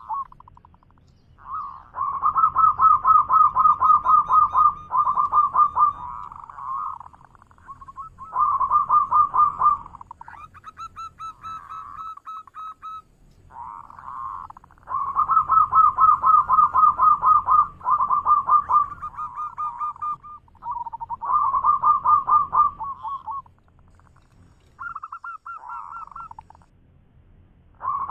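Zebra dove (local perkutut) singing its manggung song: rapid, trilling coos in phrases of a few seconds, repeated about half a dozen times with short pauses between.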